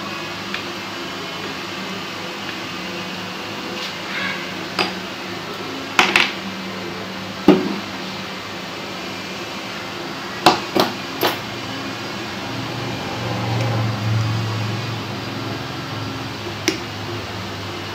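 Steel nail pick, then nail nippers, working a thick, curled toenail: about eight sharp clicks and cracks as hard pieces of nail break away, three of them in quick succession about two-thirds through, over a steady low hum.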